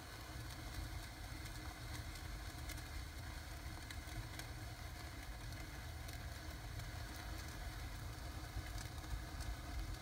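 Sparklers burning in a fireplace: a steady hiss with scattered sharp crackles, over a low steady rumble.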